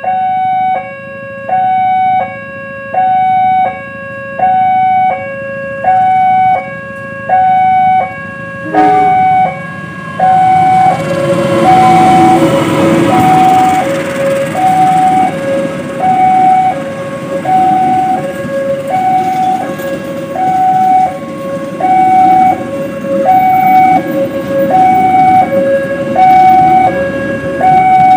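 Level-crossing warning alarm sounding its two-tone signal, alternating a high and a low tone about every second and a half. From about nine seconds in, a train passes over the crossing, and its loud wheel and running noise starts abruptly and carries on under the alarm.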